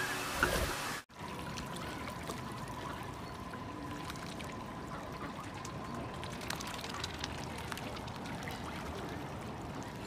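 Lake water lapping and trickling softly around swimming mute swans and ducks, a steady wash with scattered small splashes. In the first second, before a sudden cut, budgerigars chirp.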